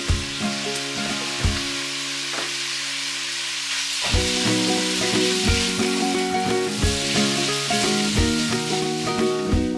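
Sliced pork belly and tomato sizzling in a frying pan as a wooden spatula stirs them, the sizzle growing louder from about four seconds in, over background music.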